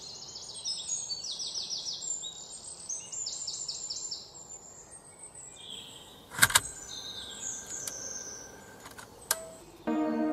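Small songbirds chirping in quick repeated high phrases, with a sharp click about six and a half seconds in and a smaller one near nine seconds. Soft ambient music with held tones comes in just before the end.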